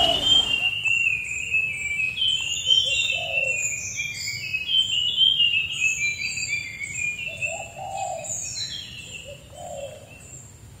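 Birds chirping and twittering, a dense run of short high notes at many pitches. A few short lower calls stand out about three seconds in and again near the end.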